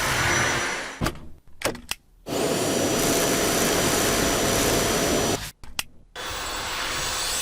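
Cordless stick vacuum cleaner motor running with a steady whir and a thin high whine. It comes in short stretches that cut off abruptly, with clicks in the gaps between them.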